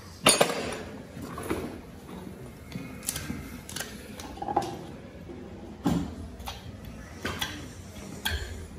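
Light metallic clinks and knocks from a horseshoe racing plate and farrier's tools being handled against a horse's hoof during shoeing, scattered strikes about a second apart.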